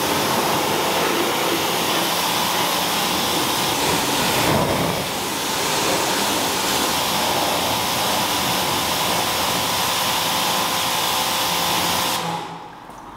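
Pressure washer spraying a jet of water onto a car's wheel and tyre: a loud, steady hiss of spray that cuts off suddenly near the end.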